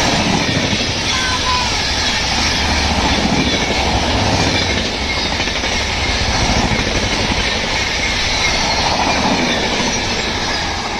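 A train running past at close range: the loud, steady rumble and rattle of its wheels and carriages on the track.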